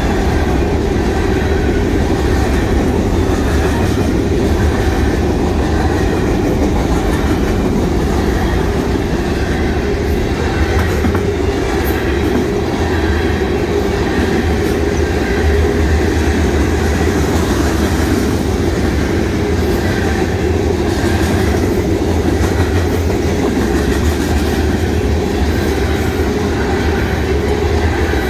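Freight train cars, covered hoppers and then tank cars, rolling past steadily: a continuous loud rumble of steel wheels on the rails with clickety-clack from the trucks.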